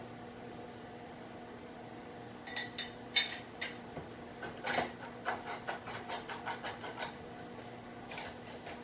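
Heavy metal parts of a log-handling tool clinking and knocking as they are handled and screwed together. A loose run of light clanks begins about two and a half seconds in and dies away about seven seconds in, over a steady low hum.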